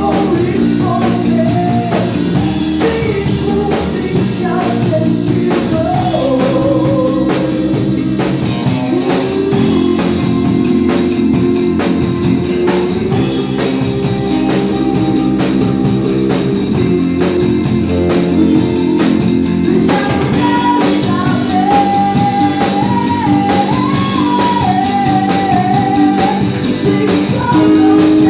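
A rock band playing live in rehearsal: a singer over drum kit and guitar, with a steady beat.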